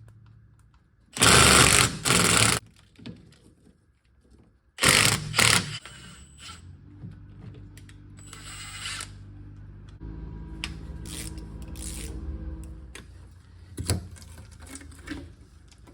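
A power tool run in short loud bursts, three times, as the bolts of a rear differential cover are taken off. It is followed by a quieter, steady mechanical hum and a few sharp clicks near the end.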